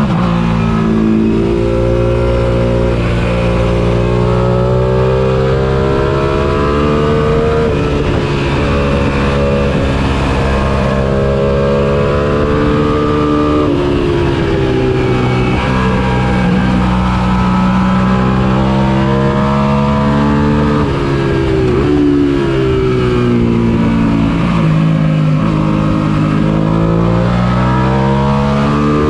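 Suzuki SV650 90-degree V-twin engine at racing speed, heard from on the bike. Its pitch climbs under hard acceleration and drops sharply several times at gear changes and braking.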